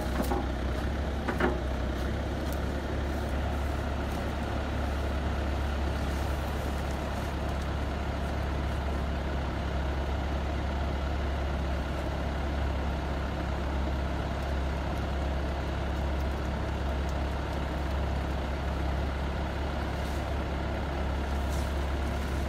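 Skid steer loader's engine running steadily with a tree spade attachment fitted, a constant low drone. One brief sharp sound about a second and a half in.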